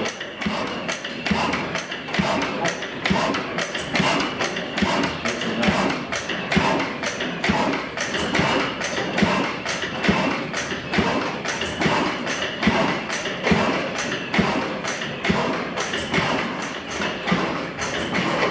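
Vintage stationary engines and belt-driven overhead line shafting running, a steady mechanical clatter with sharp knocks at several a second.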